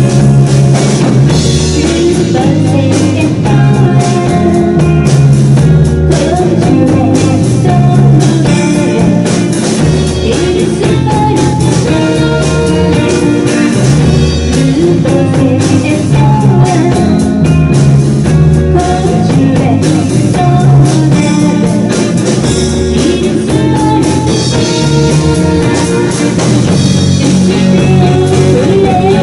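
Live rock band playing loudly: two electric guitars and a drum kit, with a woman singing.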